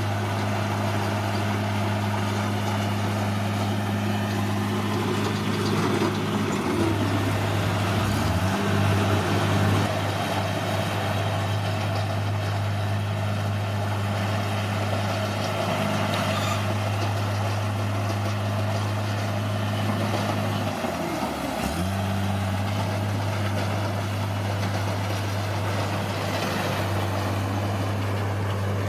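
Bulldozer's diesel engine running steadily, its pitch dipping and recovering briefly twice: about a quarter of the way in, and again about three quarters in.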